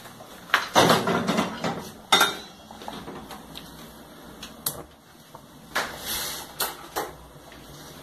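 Stainless steel pot handled and set down on a gas stove's grate: a run of metal knocks and short scrapes, the sharpest about two seconds in.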